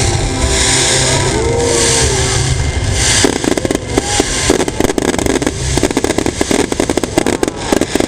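Fireworks going off: repeated hissing bursts over a low rumble, then from about three seconds in a dense run of rapid crackling pops.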